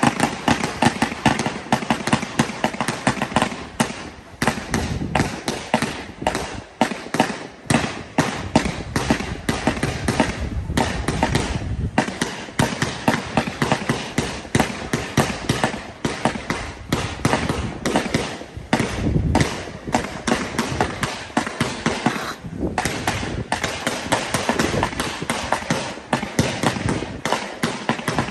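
Fireworks display: a loud, unbroken barrage of sharp bangs and crackles, several a second, as volleys of comet shells launch together.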